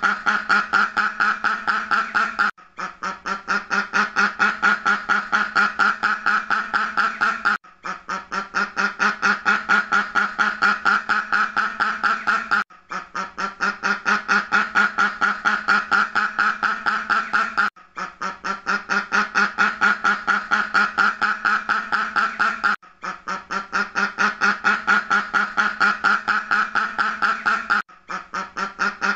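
Duck quacking in a fast, even run of about six quacks a second. The run breaks off briefly every five seconds or so and starts again the same way, as a repeating loop.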